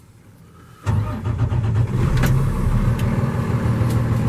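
Cummins ISC diesel of a 2011 Freightliner M2 106 truck starting about a second in, then idling steadily.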